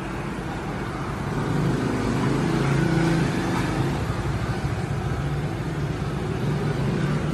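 Steady low mechanical hum over a rumbling background, growing a little louder about two seconds in and then holding.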